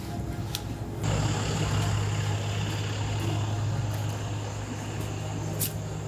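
Pickup truck engine running at idle: a steady low hum that comes in about a second in and holds. A light click near the end.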